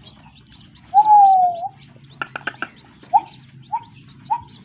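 Crake chick calling: one long clear whistled note about a second in, then a run of short rising peeps repeated a little under twice a second, over faint high cheeping.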